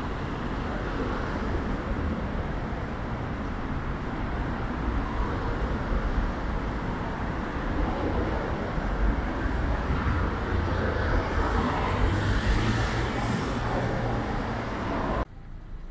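City street traffic on wet roads: cars running with tyres hissing on the wet surface, under a steady rumble. The hiss swells around twelve seconds in as a vehicle passes, and the sound drops off abruptly near the end.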